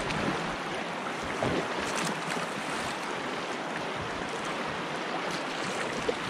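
Rushing whitewater of a river rapid, a steady hiss of churning water with a few small splashes.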